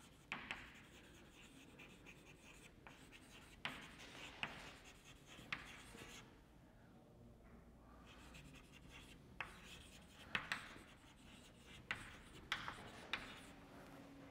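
Chalk writing on a blackboard: faint scratching strokes punctuated by sharp taps as the chalk meets the board, with a short pause about halfway through.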